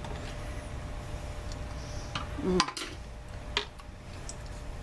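A few light clicks and taps of kitchen utensils and cookware, spaced irregularly over a low steady hum.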